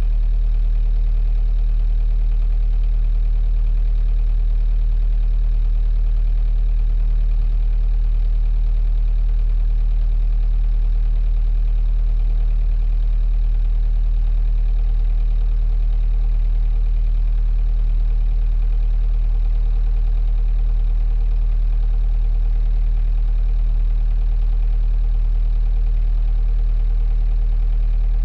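A 45 ft sailboat's inboard diesel engine running steadily at a constant speed, heard from inside the rear cabin. It is a deep, even hum that is strongest at the very low end and does not change.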